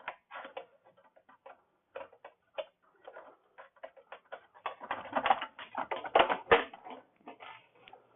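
Irregular metallic clicks and light knocks of tools and metal parts as a scooter's muffler is worked loose, growing denser and louder about five seconds in.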